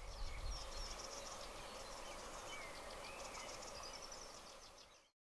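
Faint countryside ambience with several small birds singing: short warbling chirps and rapid high trills over a soft steady hiss, fading to silence near the end.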